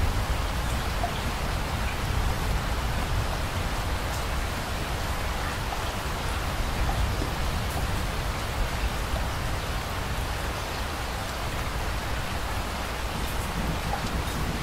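Rain falling steadily on a wet surface: a continuous hiss of drops with a low rumble underneath.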